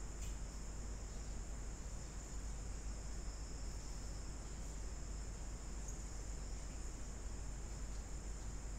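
Steady background noise of an open microphone with no one speaking: a low hum, a hiss and a faint high-pitched whine that holds level throughout.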